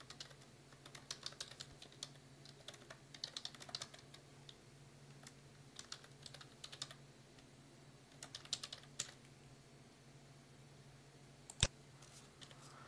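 Computer keyboard typing, faint, in several quick runs of keystrokes, then one sharper, louder click near the end, over a faint steady low hum.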